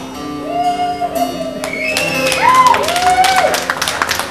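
The song's final guitar chord ringing out, then audience whoops and clapping breaking out about two seconds in.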